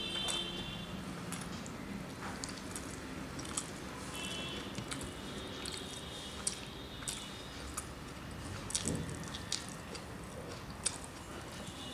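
Eating sounds: wet, squishy chewing of a mouthful of rice and curry, with fingers working rice on a steel plate and scattered short clicks.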